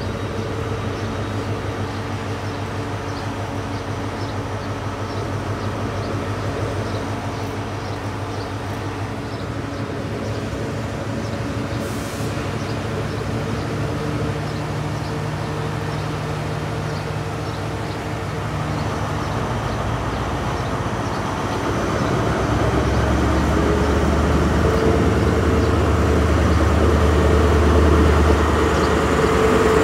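Diesel engine of a Class 43 HST power car (MTU 16V4000) running steadily at idle, then opening up about two-thirds of the way through as the train pulls away, the engine note deepening and growing louder to the end.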